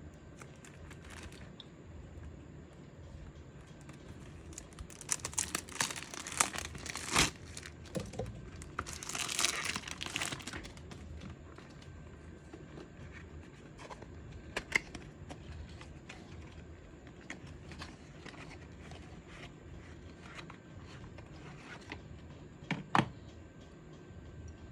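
Perfume box packaging being unwrapped by hand: wrapping crinkles and tears in two bursts, followed by scattered light clicks and a couple of sharp knocks as the box is handled.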